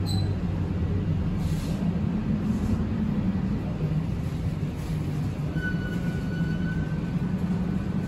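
Toronto Rocket subway train heard from inside the car as it slows along the station platform: a steady low rumble of wheels and running gear. About five and a half seconds in comes a thin, high-pitched whine that lasts about a second and a half.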